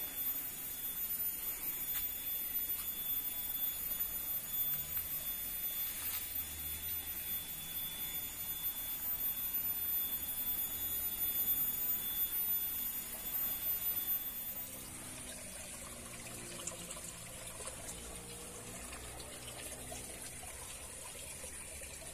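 Water running and trickling as a steady wash of noise, with thin steady high-pitched tones above it. About two-thirds of the way through it drops to a quieter, even background with a faint low hum.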